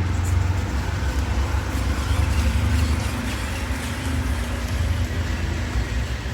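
Mini RC crawler running: a steady low motor hum with a faint tone that shifts slightly in pitch as it drives.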